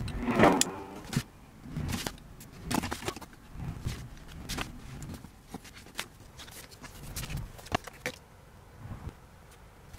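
Hands handling and trimming a sheet of adhesive vinyl film on its gridded backing with a craft knife: irregular light clicks, taps and rustles, the loudest a rustle about half a second in, thinning out toward the end.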